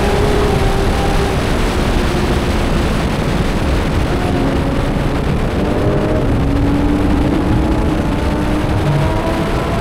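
A sports car's engine running at speed on a road course, over a dense rush of low noise. Its note eases slightly at first, then climbs slowly through the second half as the car accelerates.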